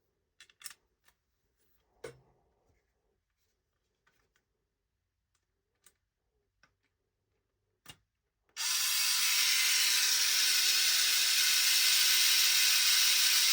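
Faint clicks and taps of small parts being handled, then about eight and a half seconds in a cordless power drill starts and runs steadily at one pitch, driving a 16mm screw into the 3D-printed skid.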